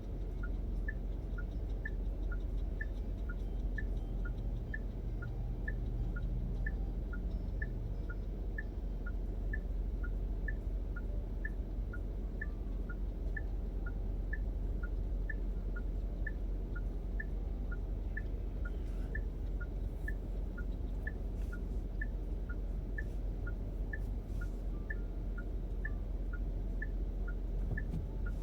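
Car's direction indicator ticking, a higher click and a lower click alternating in a steady tick-tock about once a second each, over the steady low rumble of the car in the cabin.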